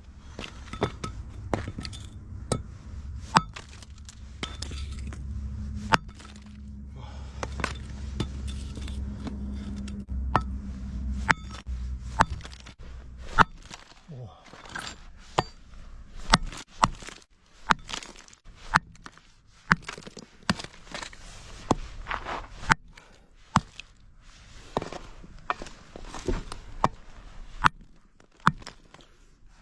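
Iron hammer smashing lumps of coal into small pieces for a stove: many sharp knocks at irregular intervals, with a low rumble under the first dozen seconds or so.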